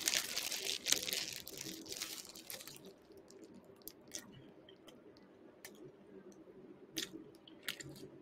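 A person chewing a mouthful of McDonald's McSpicy fried chicken sandwich: crisp crunching for the first three seconds or so, then quieter chewing with scattered soft clicks.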